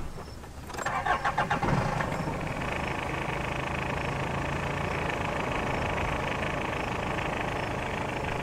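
Hyundai Santa Fe SUV's engine cranked by the starter for about a second, then catching and settling into a steady idle.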